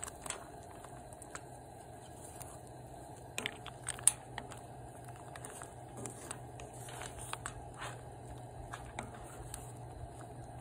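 Wooden spatula scraping and tapping against a cast iron skillet while a seafood sauce with ravioli is stirred: scattered soft clicks, with one sharper knock about four seconds in. A steady low hum runs underneath.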